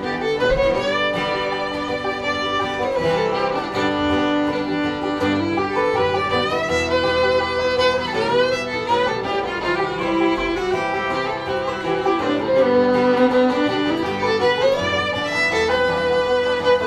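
Instrumental break in a bluegrass song: a fiddle carries the melody, sliding between notes, over strummed acoustic guitar and picked banjo.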